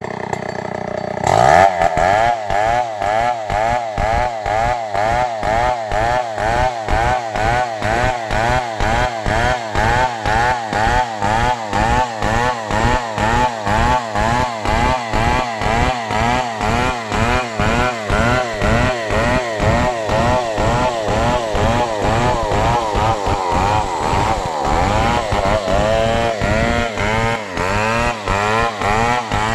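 STIHL 070 big single-cylinder two-stroke chainsaw cutting wood. It comes in about a second in, and its engine pitch and loudness swing up and down in a steady rhythm, about one and a half times a second, as it works under load.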